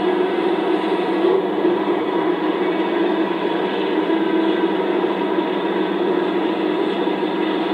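Heavy diesel engine running at a steady speed, a constant loud drone that does not change pitch.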